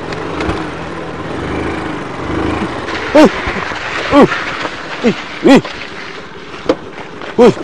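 Small motorcycle engines running at low speed, then five short, loud shouted calls, each rising and falling quickly in pitch.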